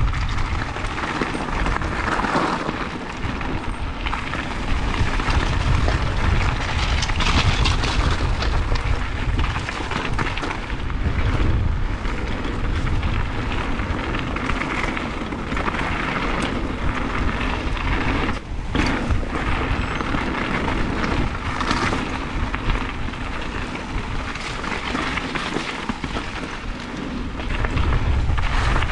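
Mountain bike riding fast down a loose-stone trail: a steady rumble of wind on the bike-mounted microphone, with tyres crunching over gravel and scattered knocks and rattles as the bike hits rocks.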